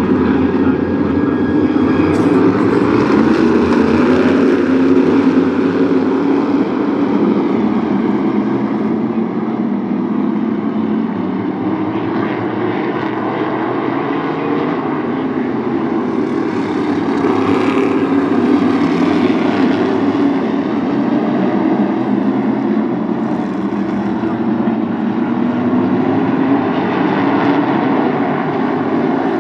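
Pack of modified race cars running laps on a short oval, engines loud and continuous, their pitch rising and falling as the cars go around.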